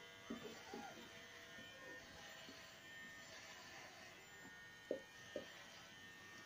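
Faint high squeaks and whimpers of newborn puppies, several in the first second and two short louder ones about five seconds in, over a steady faint hum.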